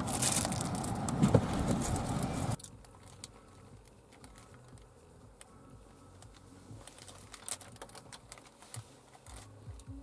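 Clicks and rustles of fast-food packaging being handled in a car: a plastic spoon against an ice-cream cup over steady car noise, then quiet crinkling of a burger's paper wrapper. The car noise cuts out abruptly about two and a half seconds in.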